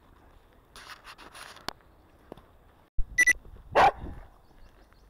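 A spaniel barks about three seconds in: two short sharp yelps, then one louder bark, with faint rustling before.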